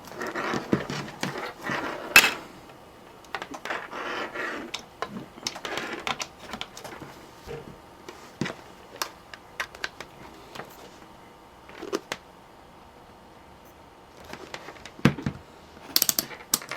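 Irregular clicks, knocks and rustling from handling the laptop power adapter's cords and plugs on a desk, with a sharper click about two seconds in and a cluster of clicks near the end.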